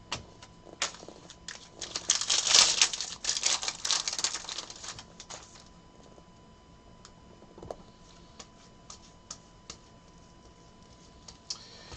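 Trading cards and their packaging handled on a table: crinkling and rustling for a few seconds, then scattered light clicks and taps.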